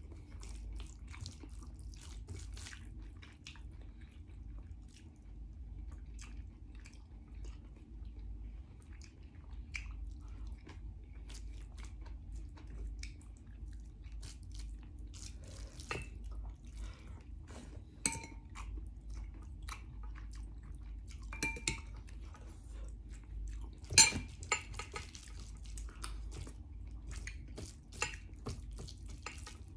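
Kitchen clatter: scattered small clicks and clinks of utensils against dishes and pans over a steady low hum, with a sharper knock a little over three quarters of the way through.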